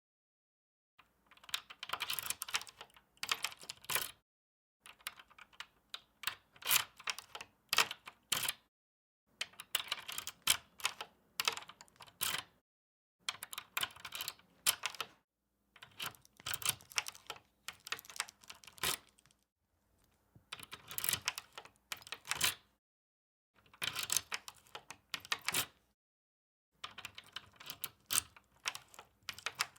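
A key inserted into a door lock and turned to unlock it, repeated about eight times. Each take is a quick run of sharp clicks lasting two to four seconds, with short silences between takes.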